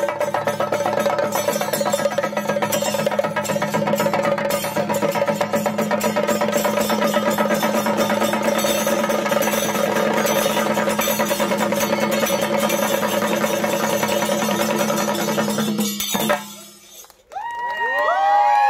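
Chenda drums beaten with sticks in a fast, dense Kerala melam rhythm, with a steady held tone under the drumming. About sixteen seconds in the drumming stops suddenly, and near the end the crowd whoops and shouts.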